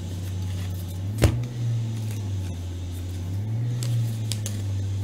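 A steady low machine drone from work being done up above, swelling and rising slightly in pitch twice, with one sharp click about a second in.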